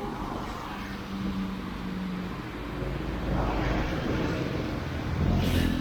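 Street traffic: engines running and vehicles passing, with a steady low rumble. One vehicle swells past about three and a half seconds in, and a louder one passes close shortly before the end.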